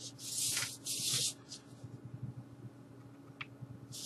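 Cardboard LP record jackets sliding and rubbing against each other as they are handled, two brushing rustles in the first second or so and another near the end, over a faint steady low hum.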